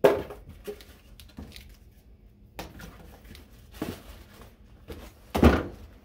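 Cardboard box being handled and opened: flaps rustling and scraping with scattered small clicks, a sharp knock at the start and a louder thump about five and a half seconds in.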